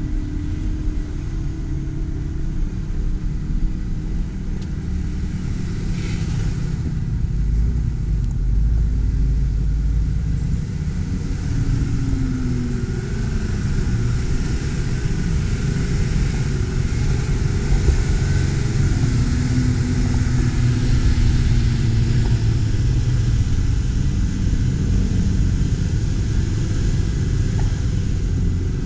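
Jeep Wrangler JL Rubicon engine running steadily on a rock-crawling trail, the revs rising and falling a few times.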